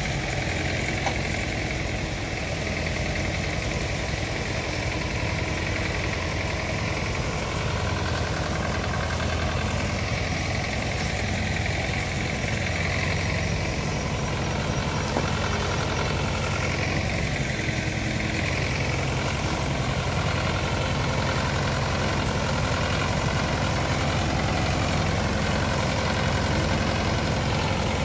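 Tractor's diesel engine running steadily.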